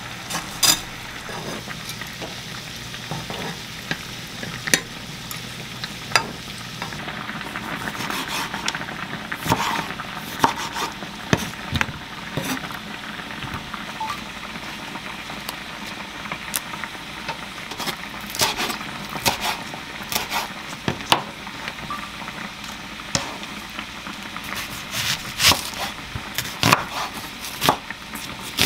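A steady hiss of whole-wheat pasta boiling in a pot on the stove, under scattered clicks and taps of a wooden spatula and utensils on cookware and a wooden cutting board. Near the end come a chef's knife's strokes through an onion on the board.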